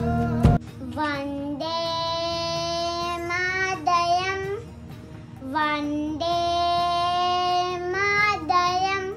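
A young boy singing alone in long, held notes, in two phrases with a short break between them, over a steady backing drone. Loud music at the start cuts off about half a second in.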